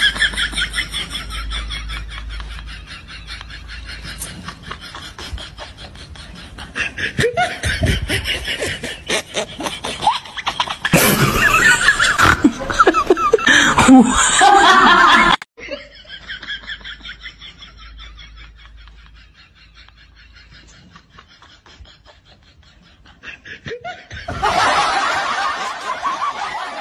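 People laughing in several stretches. A louder, noisier stretch comes about halfway through and cuts off suddenly.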